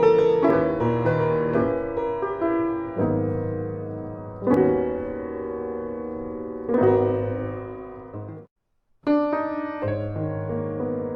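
Solo piano music: slow chords struck and left to ring and fade. The sound cuts out for about half a second late on, then the piano resumes.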